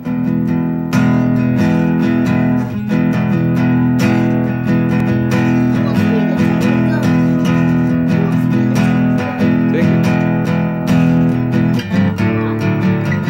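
Acoustic guitar strummed in a steady rhythm, its sustained chords changing every few seconds.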